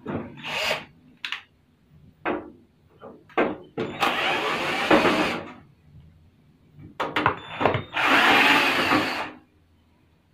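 Cordless electric screwdriver running in two bursts of about a second and a half each, about four and eight seconds in, backing screws out of the metal casing of a mini hi-fi system. Short clicks and knocks of handling come between the runs.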